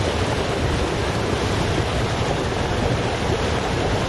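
Small waterfall pouring through a narrow rock cleft into a frothing pool, a steady rush of water close to the microphone.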